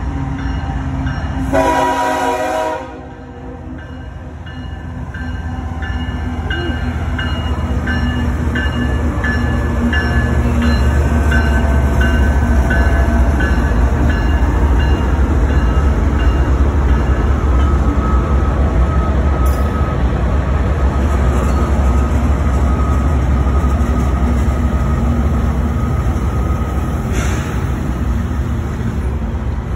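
CSX diesel locomotive horn gives one short blast about two seconds in, then the lead locomotives of a slow empty coal train pass close by, their diesel engines rumbling loudly with wheels clattering on the rails. A steady high tone rides over the rumble for a while in the second half.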